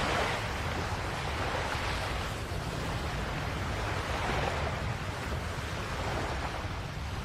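Sea waves washing onto a beach: a steady rushing that swells and fades every couple of seconds.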